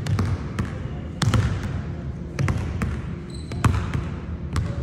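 Basketball bouncing on a hardwood gym floor, about one thud a second, each echoing in the large hall.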